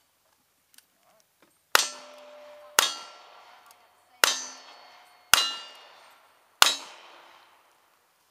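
Five revolver shots from a single-action revolver, spaced about a second apart. Each is followed by the clang of a steel target ringing out and fading.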